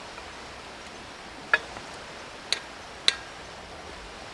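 Three sharp metallic clinks, the second about a second after the first and the third half a second later, each with a brief ring, over a steady hiss.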